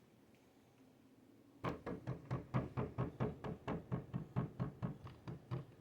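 Rapid, even knocking on a hard surface, about five knocks a second, starting about a second and a half in and lasting about four seconds.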